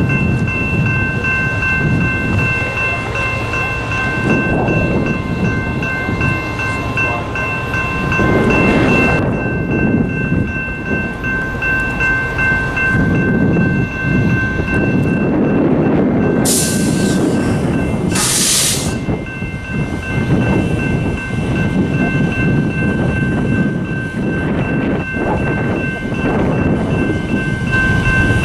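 Diesel road-switcher locomotive running as it pulls loaded scrap-metal gondolas, with a steady high-pitched ringing tone held throughout. Two short loud hisses come about 16 and 18 seconds in.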